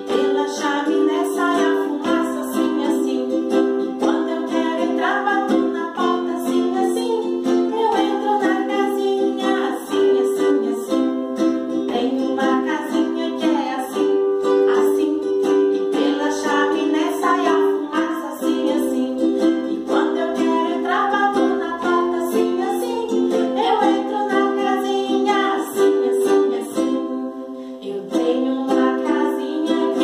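Ukulele strumming steady chords, accompanying women singing a children's song.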